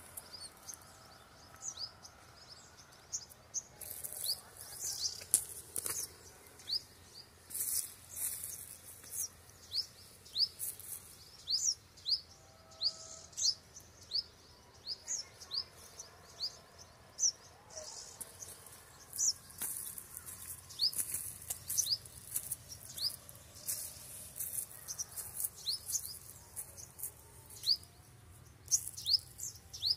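Birds calling outdoors: a steady series of short, high, rising chirps, about two a second, with bursts of higher hissy calls in between.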